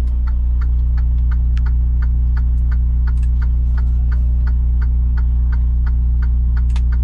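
Semi-truck's engine running steadily, a deep even hum heard from inside the cab, with a light, even ticking about three times a second over it.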